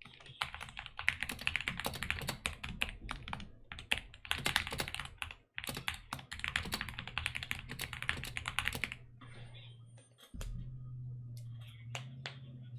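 Fast typing on a DK61 keyboard with lubed Gateron optical red linear switches, foam- and band-aid-modded: a dense, continuous run of key clacks with a brief pause about halfway through. The typing stops about three-quarters of the way in, leaving a few single key clicks over a low steady hum.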